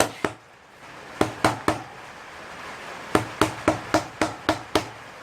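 Copper mallet tapping a motorcycle's rear wheel spindle through the swingarm and wheel hub. The sharp knocks come in short runs of two, three and then about seven, at roughly four a second.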